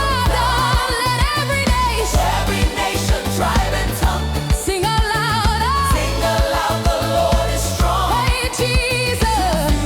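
Upbeat African gospel praise music: a steady bass-heavy beat under a wavering lead melody.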